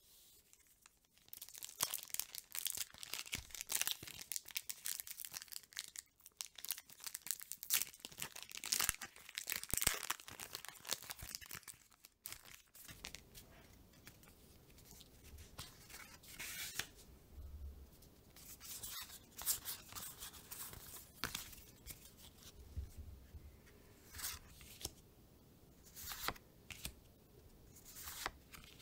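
Foil wrapper of a Pokémon booster pack crinkling and tearing as it is opened, for about the first twelve seconds. Then trading cards slid off the stack one at a time, a soft swish every second or so.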